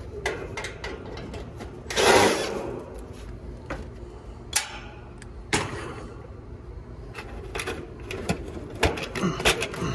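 Gloved hands pulling and rustling electrical wires free from an air-conditioning condenser's control box, with scattered clicks and taps as the wires and fittings knock against the metal cabinet. The loudest sound is a brief rustling scrape about two seconds in, and a cluster of small clicks comes near the end.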